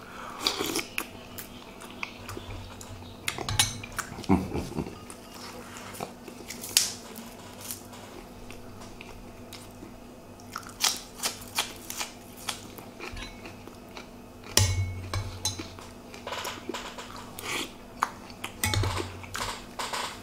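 A man eating from a bowl: chewing, with a metal spoon clinking against a ceramic soup bowl in scattered small clicks and taps. Two louder dull thumps come about 15 and 19 seconds in.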